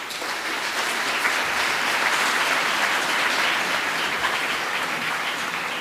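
Audience applauding in a hall, starting suddenly and holding steady, then easing slightly near the end.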